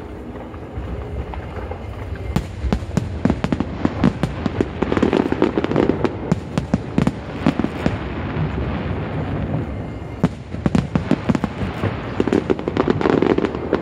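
Aerial fireworks display: a quick, dense run of crackles and bangs that thickens about two seconds in and carries on.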